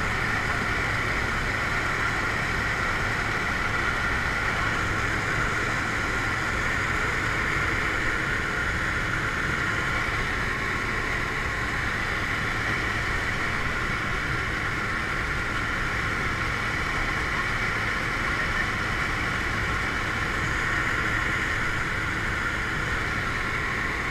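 Steady drone of a skydiving jump plane's engine and propeller, heard from inside the cabin.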